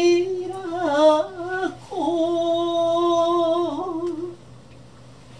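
A woman's voice singing a slow, unaccompanied melody in long held notes that waver slightly in pitch. The singing stops about four seconds in.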